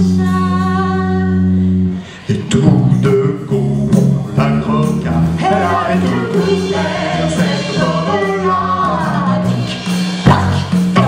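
A man and a woman singing a song into a microphone with music behind them, opening on a long held note for about two seconds and then going on into a livelier sung phrase.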